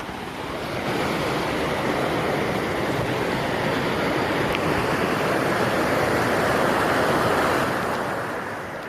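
Rushing water, a steady loud hiss that swells about a second in and eases off near the end.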